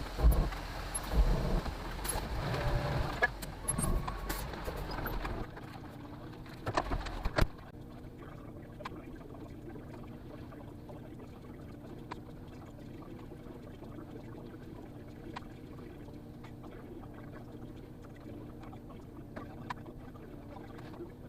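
Concrete mixer truck pouring out the last of its load: engine and drum running with loud, uneven noise for about the first five seconds. A sharp click comes about seven seconds in, then it settles to a steady, quieter hum.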